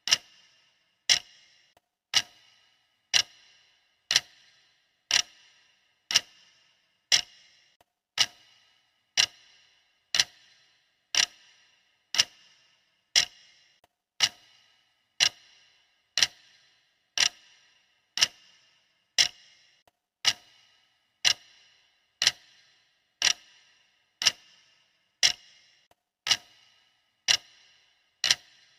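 Clock ticking sound effect: one sharp tick a second, each with a brief metallic ring, keeping steady time for a countdown timer.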